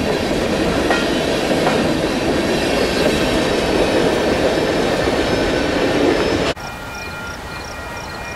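A freight train of covered hopper cars rolling past close by, its wheels rumbling steadily over the rails. About six and a half seconds in the sound cuts off abruptly to a much quieter background with faint repeated high chirps.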